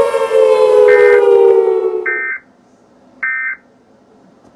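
A civil defense siren winding down, its pitch falling slowly until it cuts off about two seconds in. Over and after it come three short buzzy data bursts about a second apart: the Emergency Alert System's end-of-message tones.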